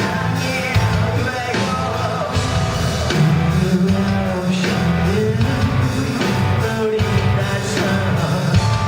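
Live rock band playing a song, loud and continuous, with drums, bass and guitars under a sung vocal line.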